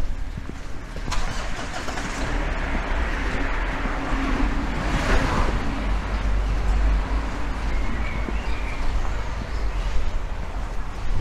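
A car on the street beside the pavement, its engine and tyre noise swelling to a peak about five seconds in and then fading away.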